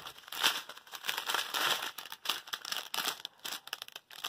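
Small clear plastic bags of diamond-painting drills crinkling as they are handled and sorted by hand, in irregular bursts of crackle.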